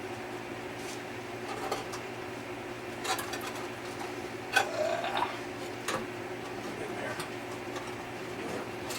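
Metal clinks and knocks as a wire-grating rotisserie basket on its spit is fitted into a toaster oven: about five sharp knocks, with a short rising metal-on-metal squeak in the middle, over a steady low hum.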